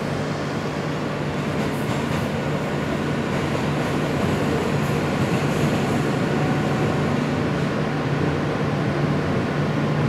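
Subway train running, heard from inside the car: a steady low hum over the wheel-on-rail noise, growing slowly a little louder as the train picks up speed out of the station.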